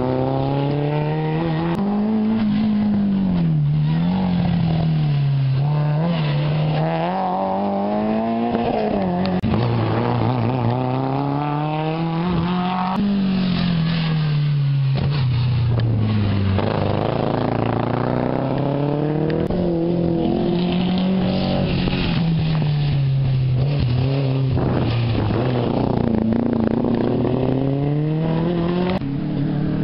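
Rally cars running flat out on a closed stage, their engines revving hard as they pass one after another, the pitch climbing and then dropping again and again with each gear change.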